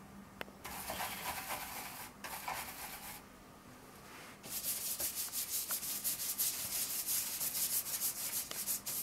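Bristles of a round stencil brush rubbed on the paint pad in its tray, then brushed quickly back and forth over a paper stencil: a scratchy hiss that starts in two short bouts and, about halfway through, turns into a louder run of fast, even strokes.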